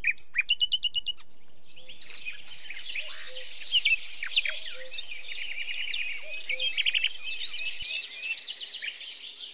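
A chorus of many small birds chirping and calling over one another. It opens with a quick run of rapid chirps in the first second and thins out toward the end.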